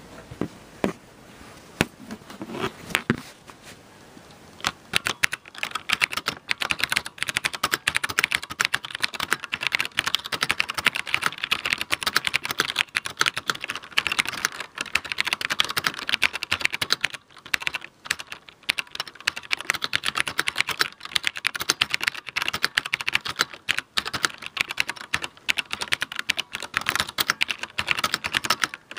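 Fast typing on a Videonics-branded Cherry G80 mechanical keyboard, its key switches giving rapid sharp clicks. A few separate keystrokes and knocks at first, then continuous fast typing from about five seconds in, broken by a few brief pauses.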